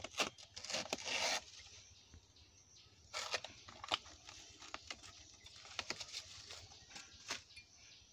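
Knife cutting into a banana tree's trunk and its fibrous outer sheath being peeled and torn, in short tearing, scraping bursts, the longest about a second in and another about three seconds in, with sharp clicks between.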